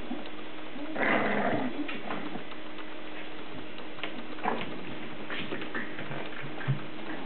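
English bulldog puppies, about seven weeks old, playing together: a short burst of puppy noise about a second in, then scattered short clicks and scuffling sounds.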